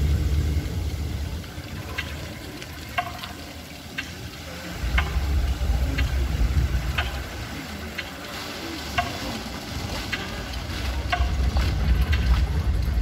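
Water-show fountain jets spraying and splashing down, a steady crackling hiss with scattered sharp clicks, over an uneven low rumble.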